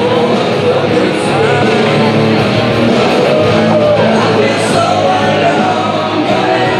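Rock music with guitar and singing, playing steadily and loudly.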